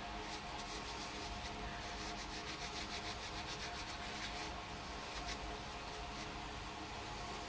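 A heavy-duty wet cleaning wipe rubbed briskly over oily hands, a quick run of soft scrubbing strokes.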